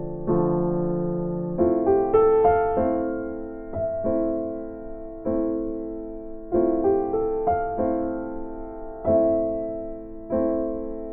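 Background music: a slow electric piano piece, chords struck about every second or so and left to fade.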